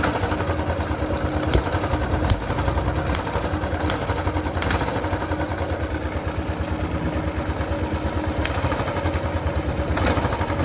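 Royal Enfield Classic single-cylinder engine idling, with a sharp pat-pat puff recurring about once a second through the first half: compression escaping past a blown head gasket.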